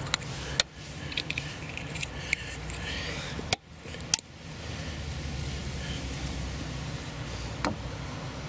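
Warm car engine idling with a steady low hum, with scattered sharp clicks and clinks over it. The sound drops out briefly about three and a half seconds in.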